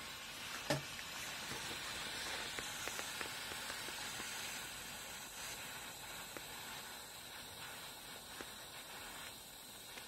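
Handheld micro torch burning with a steady hiss, its blue flame heating a thin steel pick blank held in a vise to red heat for a hot bend. One small knock sounds under a second in.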